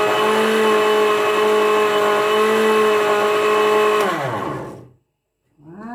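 Countertop electric blender running steadily at full speed while blending a creamy flan mixture. About four seconds in it is switched off, and the motor pitch falls as it winds down to a stop.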